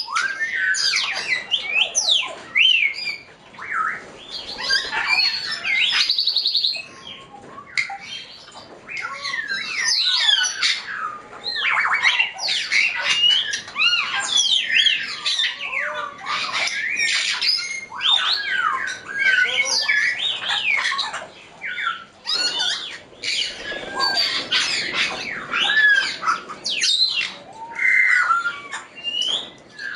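A group of African grey parrots calling: many overlapping whistles and squawks that slide up and down in pitch, with a few brief lulls.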